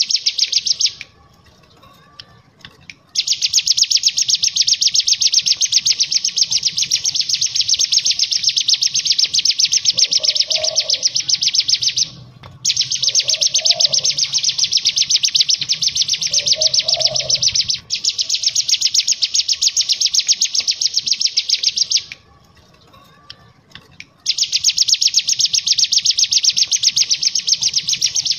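Cigun (ciblek gunung, a prinia) singing its continuous 'ngebren' song: long rattling runs of very rapid, evenly repeated high notes lasting several seconds each. The song breaks off for about two seconds near the start and again near the end, and briefly twice in the middle.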